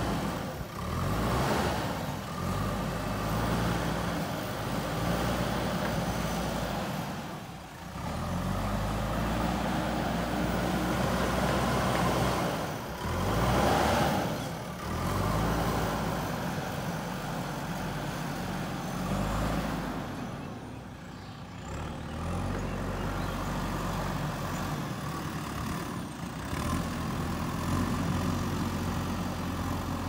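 Diesel engine of a JCB 3DX backhoe loader running under load as it pushes soil, its note rising and falling as the work goes on, loudest about halfway through.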